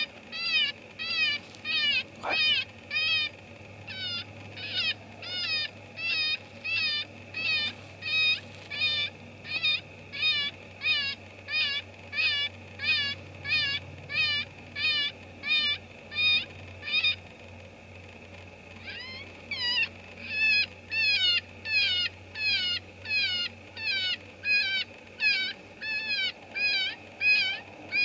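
FoxPro electronic predator caller playing a looped prey distress call: short squealing cries repeated evenly, about one and a half a second. The calls pause for a second or two about two-thirds through, then carry on at the same rate.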